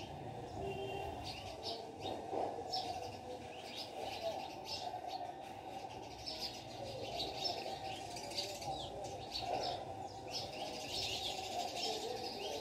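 Small birds chirping in quick short calls again and again, busier near the end, over a steady low background noise.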